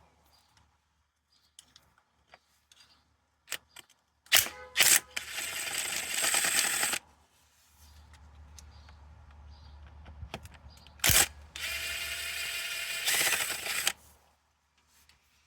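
Cordless power tool whirring in two runs of a couple of seconds each, about four and twelve seconds in, undoing the M10 spline bolts on a crankshaft pulley, with a few sharp clicks between.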